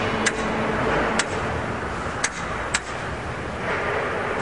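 A few sharp metallic clicks, four in all and spaced irregularly, over steady workshop noise. They come from a long-handled wrench being worked on the nuts of a marine diesel fuel injection pump's top cover.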